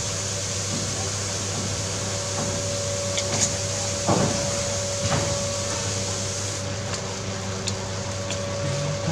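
Steady mechanical hum and hiss with one constant tone, broken by a few light knocks about three to five seconds in.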